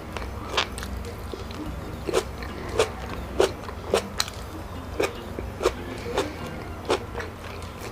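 Close-up chewing and biting of tilapia, with sharp crunching clicks about one or two a second over a low steady hum.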